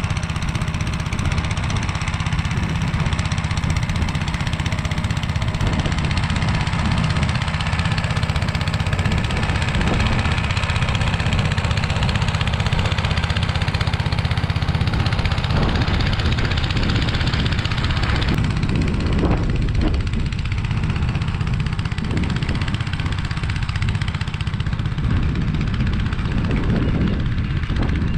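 Engine of a Motor Sich walk-behind tractor running steadily under load as its rotary tiller churns the soil, with some irregular knocks in the second half.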